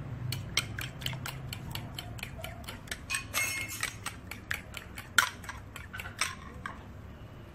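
A utensil clinking irregularly against a ceramic bowl as beaten eggs are stirred, a few sharp clicks a second.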